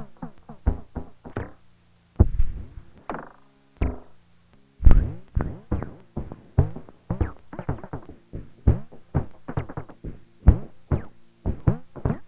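Behringer Neutron analog synthesizer playing a fast sequence of short, plucky notes, each one's tone closing down quickly after it starts, over a low held drone in the first few seconds. The run breaks off briefly twice early on, then carries on steadily.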